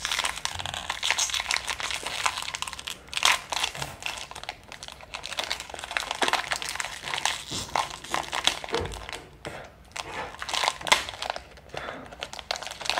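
Foil blind-bag packet crinkling and tearing as it is opened by hand: an uneven run of crackles and rustles.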